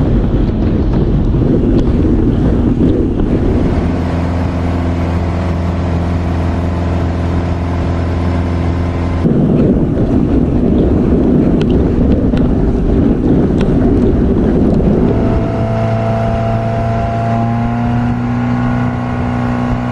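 Speedboat towing a tube at speed: rushing water and wind noise, with the boat's engine running as a steady drone that comes up strongly for a few seconds near the start and again toward the end, rising slightly in pitch.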